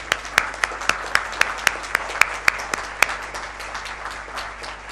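Audience applauding. A run of loud, evenly spaced sharp claps, about four a second, stands out for the first three seconds, then the applause carries on more evenly and thins toward the end.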